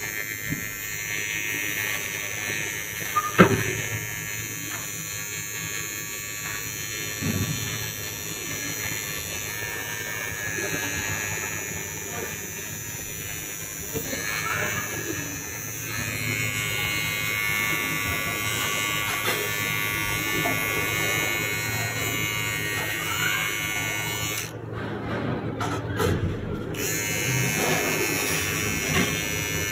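Rechargeable electric beard trimmer buzzing steadily as it is run over the cheek, jaw and chin, with one sharp click about three and a half seconds in.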